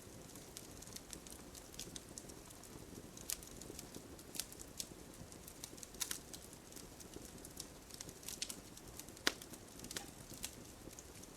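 Wood campfire burning: a low, steady rush of flame under frequent sharp crackles and pops, one pop louder than the rest about nine seconds in.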